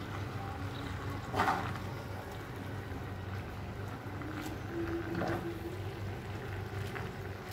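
Vegetable stew simmering in a pan over a steady low hum, with a few soft clicks and scrapes as a spoon turns spinach leaves into it.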